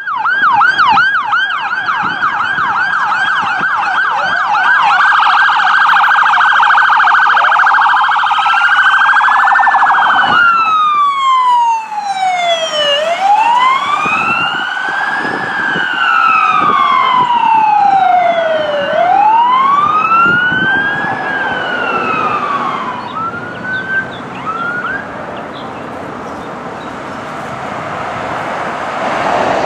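Sirens of emergency vehicles responding in convoy. A rapid yelp runs for about the first ten seconds, then slow rising-and-falling wails with two sirens overlapping, ending in a few short chirps. Road and engine noise follow, growing louder near the end as another vehicle approaches.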